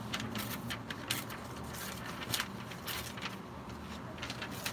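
A sheet of paper being torn by hand, a string of short, irregular crisp rips and crackles, over a low steady background hum.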